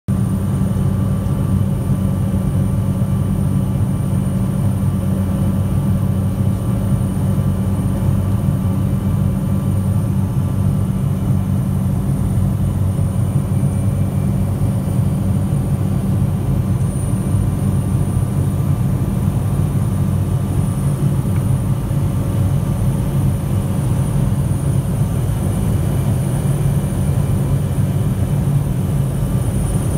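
Cockpit noise of a Cessna Caravan's PT6A turboprop engine and propeller in cruise flight: a loud, steady low drone with a thin high whine above it, heard from inside the cabin.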